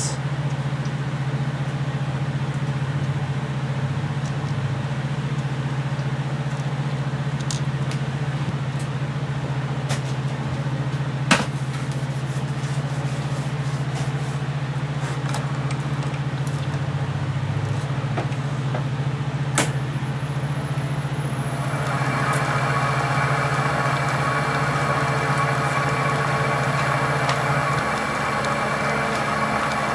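Wood lathe running, its electric motor humming steadily as the headstock step pulley spins. Two sharp clicks come partway through, and about two-thirds of the way in a higher whine joins the hum.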